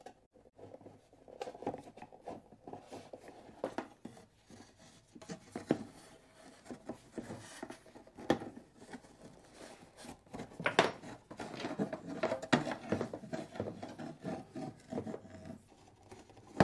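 Battery cable being pushed and pulled to get slack to a terminal: irregular rubbing and scraping with scattered clicks and knocks.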